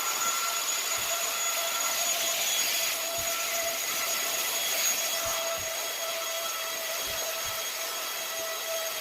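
An electric household appliance's fan motor running steadily: a constant rush of air with a steady whine on top, and a few faint low bumps.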